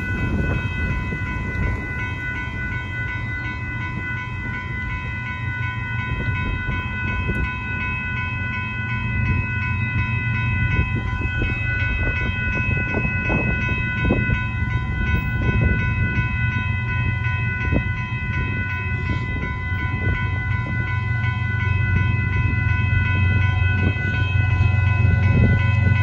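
Railroad grade-crossing warning bells ringing steadily. Underneath is the rumble of an approaching freight rock train, which grows louder near the end, with a few scattered clanks partway through.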